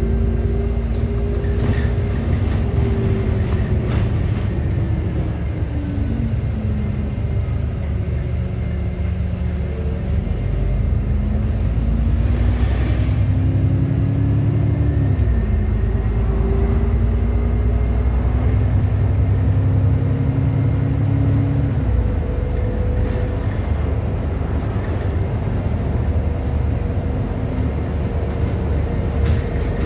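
Interior running noise of an ADL Enviro400 MMC double-decker bus under way, with engine and road rumble. The engine note climbs steadily and drops back sharply a few times as the gearbox changes up, with occasional light rattles.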